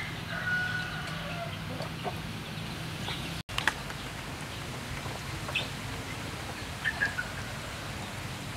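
Chickens clucking, with one drawn-out call in the first second and a half and a few short clucks later.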